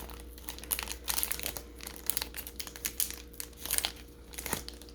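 Foil booster pack wrapper of Pokémon trading cards crinkling and crackling in the hands, in irregular bursts of sharp crackles, as it is worked at to get it open.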